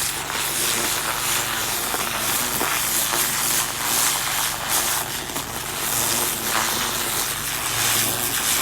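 Pressure washer running: the steady hum of its motor and pump under the loud hiss of the high-pressure water jet blasting into bark mulch and soil to tear out grass and weeds.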